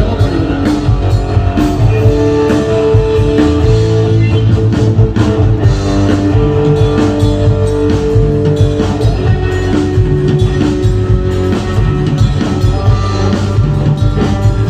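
Rock music with electric guitar and a drum kit, held guitar notes over steady drumming.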